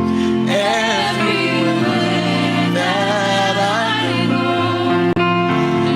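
Slow worship music: a sung melody over sustained instrumental chords. The sound briefly drops out about five seconds in.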